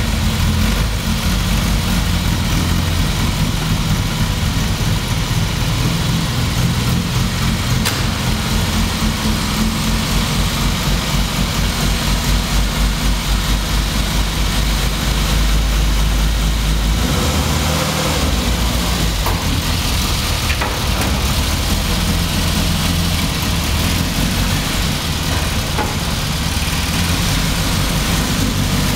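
1991 Rover Mini Cooper's four-cylinder engine running at idle just after starting, its low, pulsing rumble echoing off the concrete of a parking garage. The low rumble swells briefly about halfway through, then settles back.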